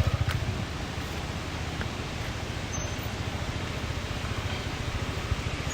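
KTM 390 Adventure's single-cylinder engine running at low revs with a rapid, steady low pulsing. It drops to a quieter note about half a second in, as the throttle eases off. There is an even hiss of wind and road noise over it.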